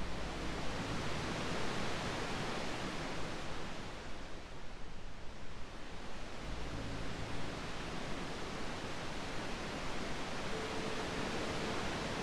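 Gentle ocean surf, a hiss of waves that swells and recedes slowly. Soft, sustained music tones sit faintly beneath it from about halfway.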